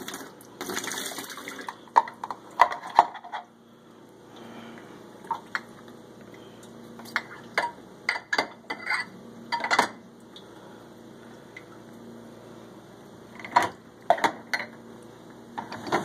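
Glass tumblers and dishes clinking and knocking against each other and the dishwasher's wire rack as they are handled. It starts as a busy clatter for about two seconds, then turns into scattered single knocks with quiet gaps between.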